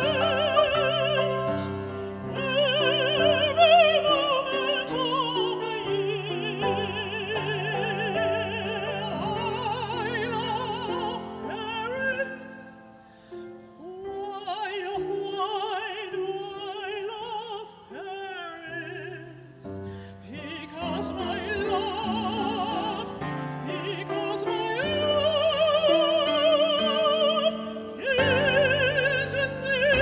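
Female singer in operatic style holding long notes with a wide vibrato, accompanied by grand piano. The music softens about halfway through and builds again to loud high notes near the end.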